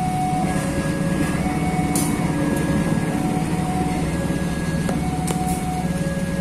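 Level-crossing electronic warning alarm sounding a two-tone chime that alternates high and low about once a second. Under it, the steady low rumble of a diesel locomotive and its coaches rolling across the crossing, with a few sharp clicks of wheels on the rails about five seconds in.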